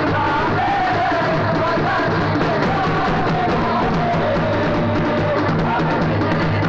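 Street marching band of bass drums and stick-beaten drums playing a steady beat, with a wavering melody line carried above the drums.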